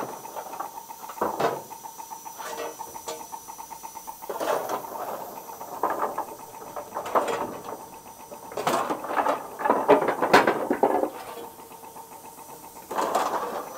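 A steel coal shovel scraping into a pile of coal on a steam locomotive's steel footplate as the fireman fires the engine. It makes a run of irregular scrapes and clattering coal, loudest about ten seconds in and again just before the end.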